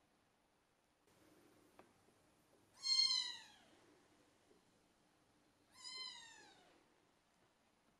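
British Shorthair kitten meowing twice, two high-pitched calls about three seconds apart, each falling in pitch.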